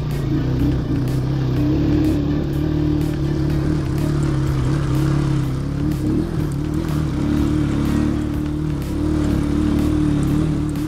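Motorcycle engine running at a steady note while being ridden along a dry dirt trail; the pitch wavers only slightly, with no big revving.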